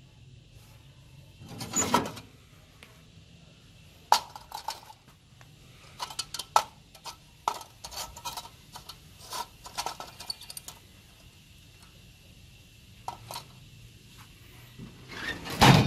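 Rusty sheet-metal Feuerhand hurricane lantern being handled, its loose wire bail and frame clinking and rattling in many quick light metallic knocks. There is a heavier knock about two seconds in and the loudest knock near the end, over a faint steady high hiss.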